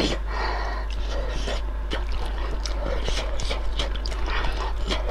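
Close-miked eating of spicy seafood stew: wet slurping of noodles and broth and chewing, with many small mouth clicks and smacks.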